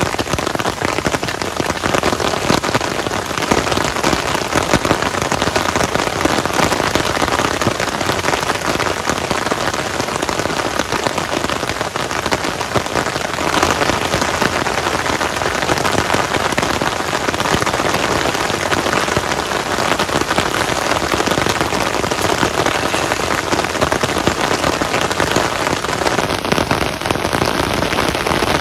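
Heavy rain falling steadily, a dense, even downpour of drops.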